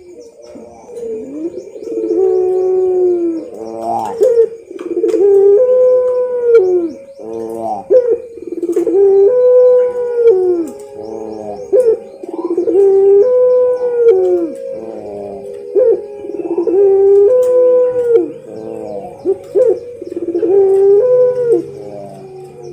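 Puter pelung (a long-cooing domestic turtle dove) cooing loudly in repeated drawn-out phrases, a new phrase about every three to four seconds.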